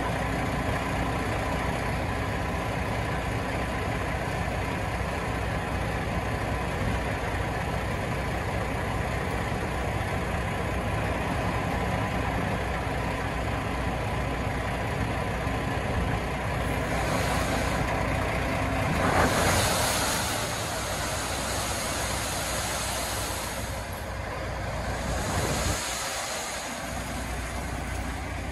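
Diesel engine of a semi tractor running steadily while its end-dump trailer is tipped up, with a few hisses in the second half, the loudest about two-thirds of the way through.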